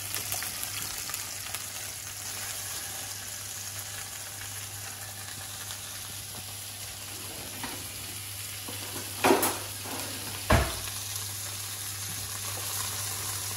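A turbot steak frying in oil in a hot non-stick pan: a steady sizzle, with two sharp knocks a little over a second apart about two thirds of the way in.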